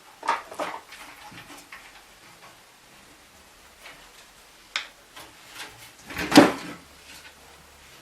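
Handling of a PC case's metal side panel as it is freed and pulled off: small clicks and knocks, then one louder metallic slide or clatter about six seconds in.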